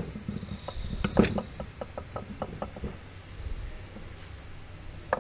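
Metal knocks and clicks as the bearing is worked into place in a StuG III G final drive: a cluster of knocks, the loudest a little over a second in, then a run of lighter ticks about four a second that dies away after about three seconds.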